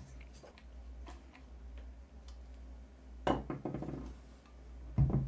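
Nut driver tightening the bolts on a Lucas 16W wiper motor, with small metal ticks and clicks from the tool and motor parts, and louder knocks about three seconds in and again near the end.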